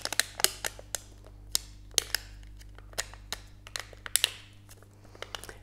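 Thin aluminium sheet cut from a drink can being folded and creased by hand: irregular sharp crinkles and clicks, with a couple of brief rubbing sounds, over a faint steady hum.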